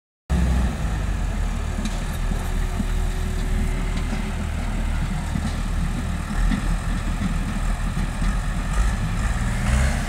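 Farm tractor diesel engines running steadily.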